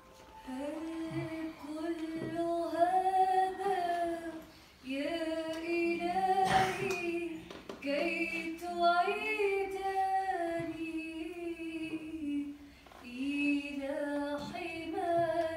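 A woman's or girl's voice singing a slow devotional hymn, in phrases of about four seconds with short breaths between them. A brief noisy burst sounds about halfway through.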